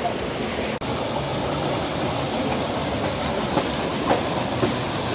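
Steady rush of spring water pouring out into a pool like a small waterfall. The sound cuts out for an instant about a second in.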